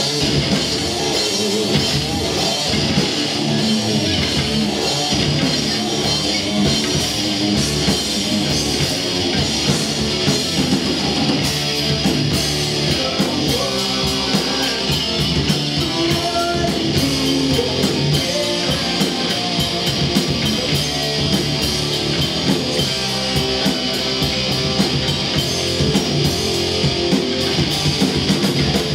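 A heavy metal band playing live: electric guitars and a Tama drum kit going full tilt with no break.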